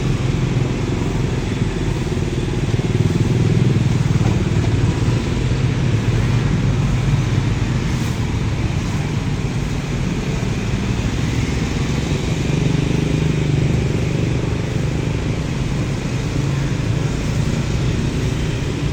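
Motor vehicle engines running steadily, a continuous low hum with no sharp knocks.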